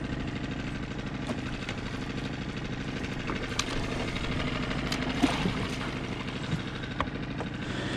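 Outboard motor running steadily at a constant speed, driving an inflatable boat across the water, with a few light knocks scattered through.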